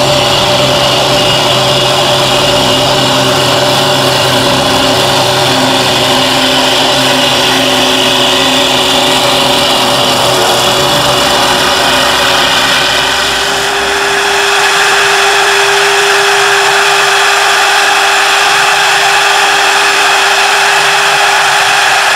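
CNC wood-turning lathe running and cutting a spinning wooden blank: a loud, steady machine whir with cutting noise. About two-thirds in, after a brief dip, the low hum drops away and a steady higher tone runs on.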